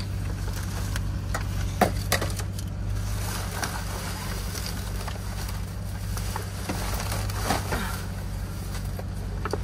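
Rummaging through discarded goods in a dumpster: scattered knocks, clicks and rustling of packaged items being handled and moved, over a steady low hum.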